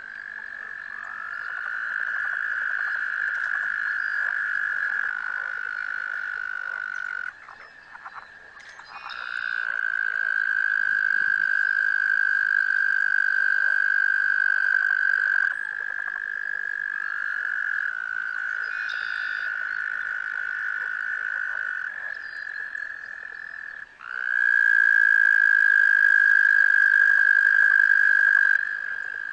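Several toads giving long, steady trills of several seconds each, overlapping at two slightly different pitches. A short break comes about seven seconds in, and the loudest trill starts near the end.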